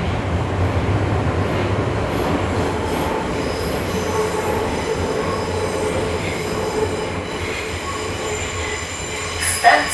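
Moscow Metro 81-765 "Moskva" car running in the tunnel, heard from inside the cabin: a steady rumble of wheels on rail with faint steady whining tones over it. The low rumble eases off near the end as the train slows toward the terminal station.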